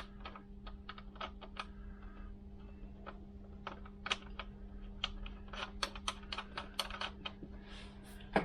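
Irregular light metallic clicks and taps as a wheel nut is handled and spun onto a stud of a Vespa PX spare wheel, over a steady low hum.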